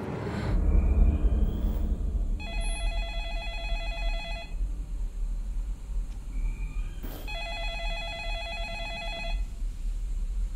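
Landline telephone ringing, two rings of about two seconds each with a pause of about three seconds between them, over a steady low rumble.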